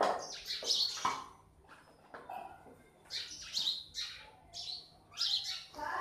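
House sparrows chirping: clusters of quick, high chirps come in bursts with short gaps between them.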